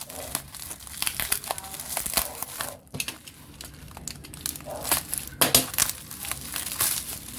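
Plastic packaging crinkling and tearing as replacement graphics-card cooling fans are unwrapped by hand, in irregular crackles with a louder burst about five and a half seconds in.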